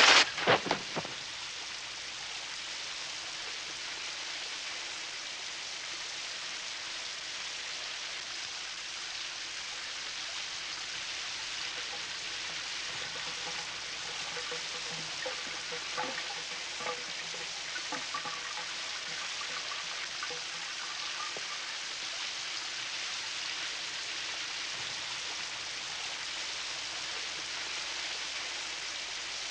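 Shower curtain rings snapping and popping off the rod in a quick burst at the very start, then a shower spraying steadily onto a tiled tub and running down the drain.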